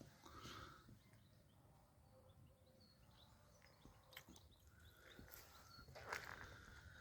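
Near silence with faint birds chirping in the distance, short high chirps scattered throughout, and a few soft clicks.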